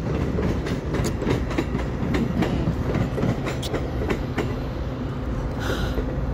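Metra commuter train rolling over the yard tracks, steel wheels clicking irregularly over rail joints and switches above a steady low rumble, with a brief hiss near the end.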